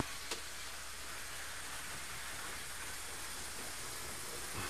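Steady hissing whir of OO gauge model trains running around the track, with a couple of faint clicks.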